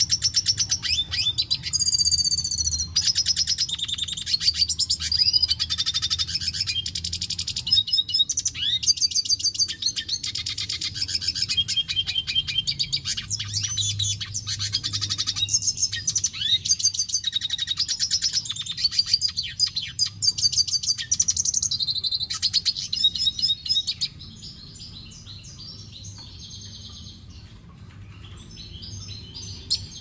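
Male red siskin singing a long, fast, twittering song of rapid trills and quick up-and-down notes. The song breaks off about six seconds before the end, leaving only a few soft notes.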